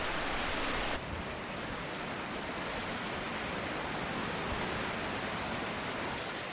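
Steady rushing outdoor noise, with no single event standing out; its tone changes slightly about a second in.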